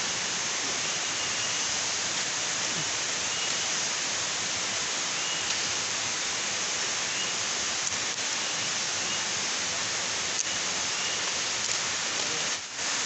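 Steady hissing forest background noise, with faint short high chirps now and then.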